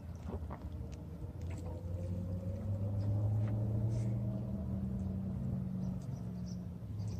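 A steady low engine hum that grows louder about two seconds in, with a few light clicks over it.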